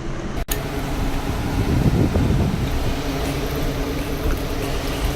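A steady mechanical hum over a dense rushing noise, with a brief dropout about half a second in.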